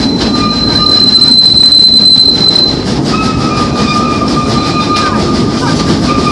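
Train cars rolling along the track with a steady rumble, the wheels squealing in thin high tones that change pitch about halfway through.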